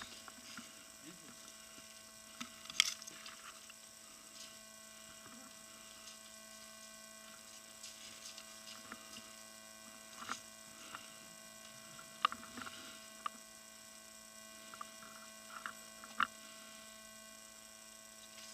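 Faint steady electrical hum, with a few soft scattered clicks and knocks.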